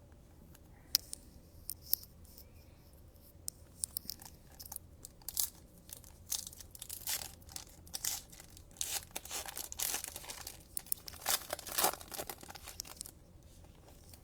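A foil trading-card pack being torn open and crinkled by hand: a few sharp crackles at first, then a dense stretch of tearing and crinkling.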